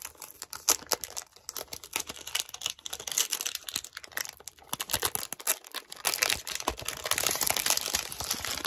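A perfume carton being opened by hand: its sealing sticker torn free and the card packaging crinkling and rustling in a dense run of small crackles and clicks, busiest through the second half.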